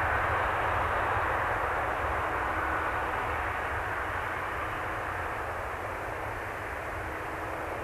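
Twin GE90-115B turbofan engines of a Boeing 777-300ER at takeoff thrust during the takeoff roll: a steady rushing jet noise that slowly fades as the aircraft moves away down the runway.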